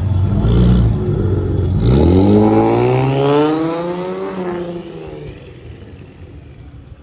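Chevrolet Camaro's engine running low, then revving hard about two seconds in. Its pitch rises steadily as the car accelerates away, and the sound then fades into the distance.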